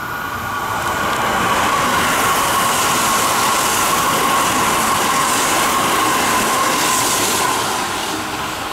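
Kintetsu limited express train running through the station at speed without stopping: a steady rush of wheels on rail with a steady whine. It swells about a second in, holds, and eases off near the end as the train goes by.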